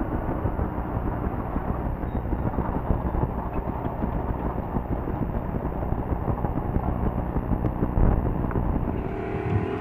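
Desert race truck's engine idling, heard from inside the cab, with a single low thump about eight seconds in.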